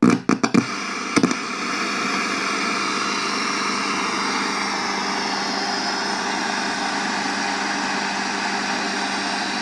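Kit-built regenerative shortwave receiver switched on: a few crackling clicks, then steady receiver hiss with a low hum from its loudspeaker, no station tuned in. The set is in its oscillating regeneration state.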